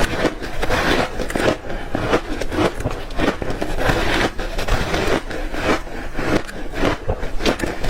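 Close-up crunching of ice chunks coated in matcha powder being bitten and chewed, many sharp irregular crunches in quick succession.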